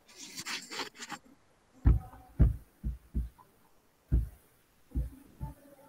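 Handling noise on a phone's microphone: a brief rubbing rustle, then about seven dull low thumps at uneven intervals as the phone is picked up and moved about.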